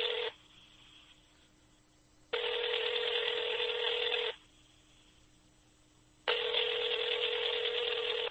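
Telephone ringing tone heard over the phone line while the call is on hold: a buzzy electronic ring about two seconds long, repeating after two-second pauses. One ring ends just after the start, a full ring comes in the middle, and another begins about six seconds in.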